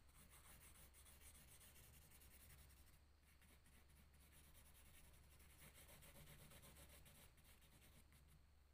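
Faint scratching of a blue crayon rubbed back and forth on drawing paper in quick shading strokes.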